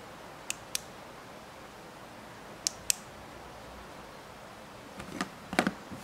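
A small switch on a hand-held circuit board clicking twice in quick pairs, on and off, then a short cluster of knocks as the board is handled and set down on a cutting mat. A steady faint hiss underneath.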